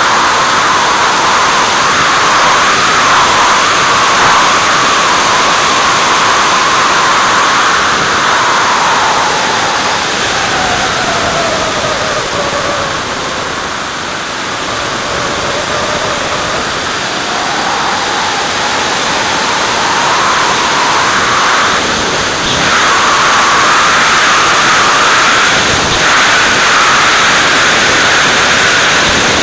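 Onboard sound of a radio-controlled model aircraft in flight: a steady rush of wind over the camera with a high engine whine that drops in pitch about ten seconds in and climbs back up by about seventeen seconds in. A couple of brief knocks come near the end.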